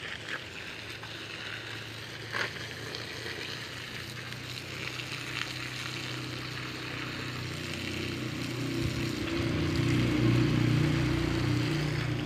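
Water from a garden hose spraying onto soil and plants with a steady hiss. From about eight seconds in, a low mechanical hum grows louder and becomes the loudest sound.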